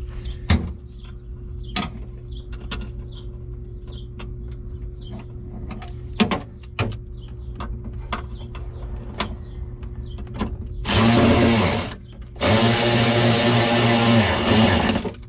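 Light clicks and knocks of tools and parts being handled, then a power tool driving a fastener in two bursts near the end, a short one and then a longer one of about two and a half seconds.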